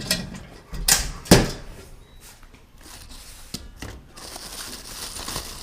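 A few sharp knocks and clunks as the lid of a Camco Big Red Campfire propane fire pit is handled and set down, the loudest about a second and a half in. A steady rustle of packaging follows in the last second and a half.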